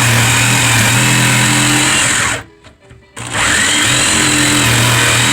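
Electric power tool running at full speed in two long bursts, with a steady motor hum and a bright hiss, cutting out for about a second in the middle.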